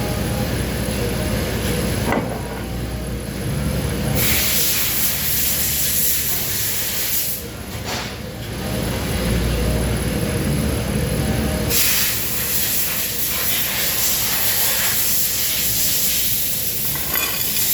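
Loud hissing that comes on about four seconds in, stops after a few seconds, and starts again near twelve seconds, over a steady low rumble.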